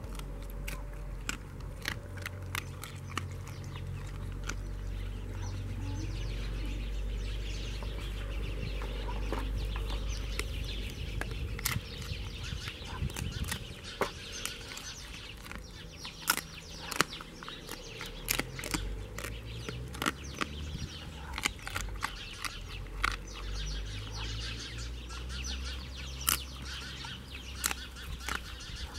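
A large dog chewing and crunching raw meat and bones, with irregular sharp cracks throughout and a few louder snaps in the second half.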